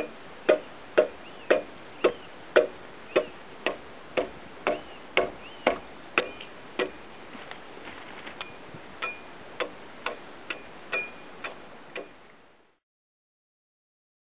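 Replica medieval axe chopping into a wooden beam to cut a tenon cheek: sharp blade strikes about two a second, splitting off chips. The strikes grow weaker after about six seconds and stop about twelve seconds in.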